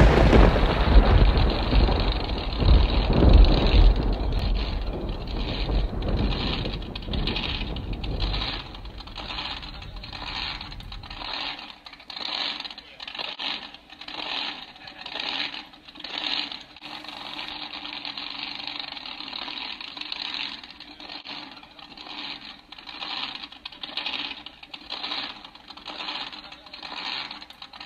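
Background music: a deep boom that dies away over about ten seconds, then a song carrying on over a regular beat.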